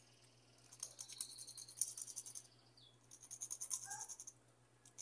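An emery board rasping faintly across the tip of a plastic press-on nail in quick back-and-forth strokes, in two short bursts, about a second in and again around three seconds in. The filing smooths off the small mark left at the nail's tip.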